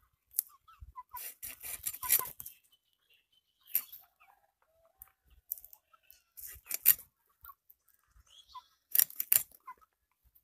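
Snakehead fish being scaled and cut against the fixed upright blade of a bonti: short, sharp scraping strokes in several bursts.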